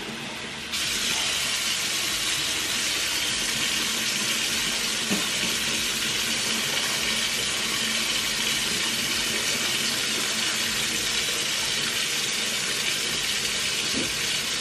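Water poured in a steady stream from a plastic measuring jug onto sliced white bread in a plastic mixing bowl, starting abruptly about a second in and running on evenly.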